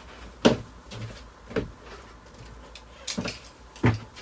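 About four separate knocks and bumps, spread over four seconds, from someone moving about inside a motorhome to fetch a tape measure, such as cupboard doors, drawers or footsteps.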